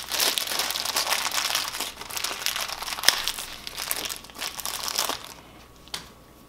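Thin clear plastic bag crinkling as gloved hands open it and pull out an engine main bearing shell, with a sharp snap about three seconds in. The crinkling stops about five seconds in, and one light click follows near the end.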